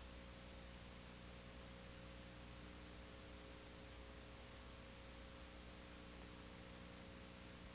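Near silence: a steady electrical hum of several low tones over faint hiss, with no other sound.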